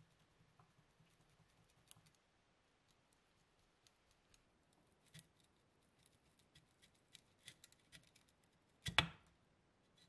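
Faint metal clicks and scrapes as a dirt-encrusted butane lighter insert is worked loose from its metal machine-gun-shaped housing, crusted grime crumbling off, with one louder sharp clack about nine seconds in.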